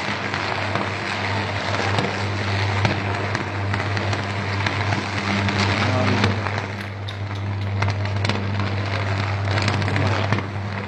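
Sustained high-voltage power arc at a transmission tower conductor: a deep, steady electrical buzz with dense crackling throughout. This is a fault arc between line conductors and the tower.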